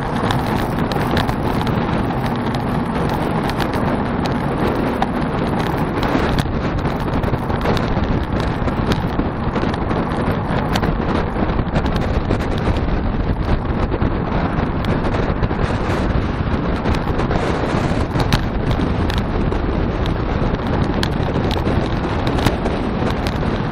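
Steady wind rush over a bike-mounted camera's microphone on a road-bike descent at speed, mixed with tyre and road noise and scattered small clicks.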